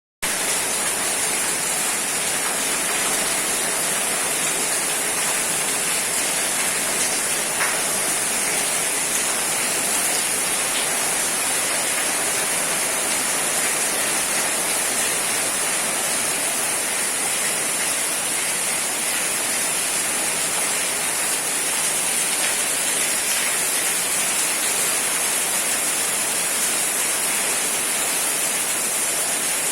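Rain falling steadily: an even hiss that holds the same level throughout, with a few faint ticks of drops.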